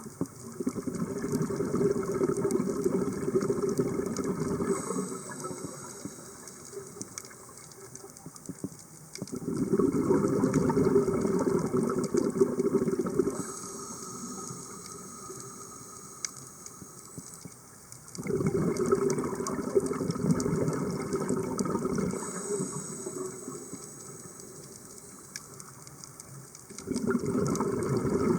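Scuba diver breathing through a regulator underwater. Four bubbling exhalations of about four seconds each alternate with quieter, hissing inhalations, one breath roughly every nine seconds.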